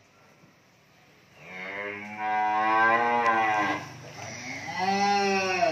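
Cattle mooing: two long calls. The first starts about a second and a half in and lasts about two seconds; the second comes near the end, rising and then falling.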